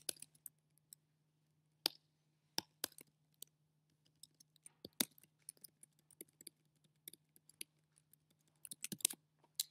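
Computer keyboard typing: scattered single keystrokes with pauses between them, then a quick run of keystrokes near the end.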